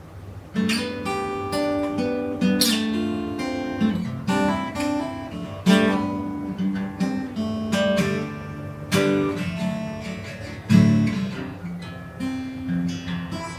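Solo acoustic guitar playing an instrumental intro, coming in about half a second in with a run of picked notes and chords.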